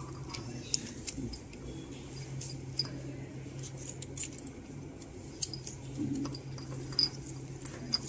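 Small clicks, taps and scrapes of a plastic waterproof fiber-optic connector housing being handled and screwed together by hand, over a steady low hum.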